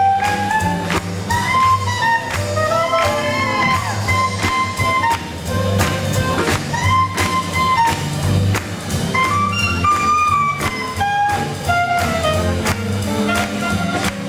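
Live swing jazz band playing an up-tempo tune: trumpet and other horns carry the melody over a steady beat of bass and drum kit.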